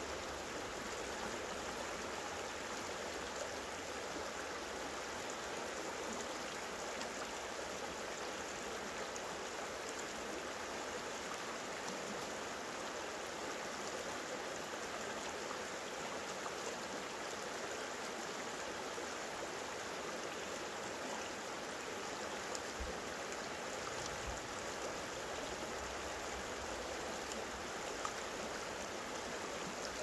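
The Kaweah River's shallow water rushing and babbling over and around rounded boulders, a steady, even river sound.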